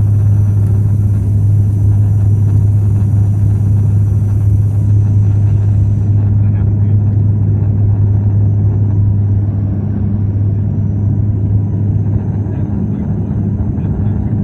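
Cabin noise of a Bombardier Dash 8 Q400 on landing approach, heard inside the cabin beside the propeller: the turboprop engine and six-bladed propeller make a steady low drone over rushing air.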